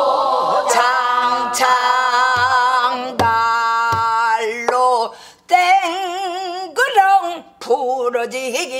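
Korean Namdo folk song (japga) sung in a full, sustained voice with wide vibrato, in long held and bending notes, with a short break about five seconds in before the next phrase. A few strokes on a buk barrel drum mark the beat in the first half.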